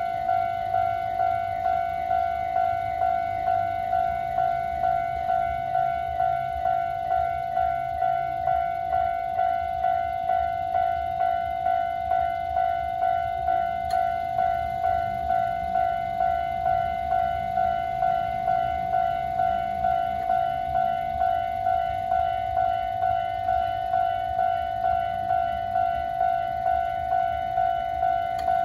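Japanese electronic level-crossing warning bell ringing, a steady pitched ding repeated evenly at roughly three dings every two seconds.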